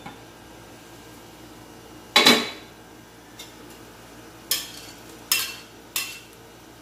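An aluminium wok lid set down with a loud clank about two seconds in, then three sharp clinks of a metal spatula scraping and tapping chopped red pepper off a plate into the wok.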